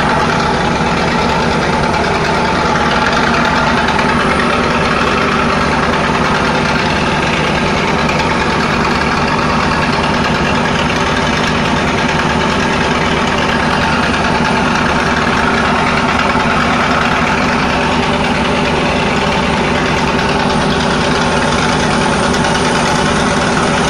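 Steady drone of a river passenger launch's diesel engine heard from on board, with an even rushing hiss of water and wind over it.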